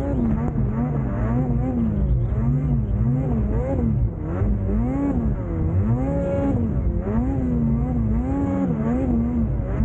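Snowmobile engine revving up and down over and over, about once a second, as the sled is throttled through deep powder snow.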